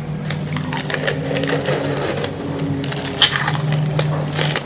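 Plastic protective wrap being peeled and crinkled off a bicycle frame: irregular crackling and rustling of the film, with a steady low hum underneath.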